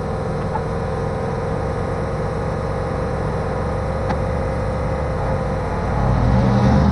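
Unimog's diesel engine running steadily, then rising in level near the end as the truck is driven forward.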